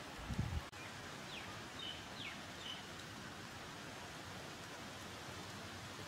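Steady outdoor hiss with a few faint, short, high bird chirps, some falling in pitch, between about one and three seconds in. A brief low thump comes just after the start.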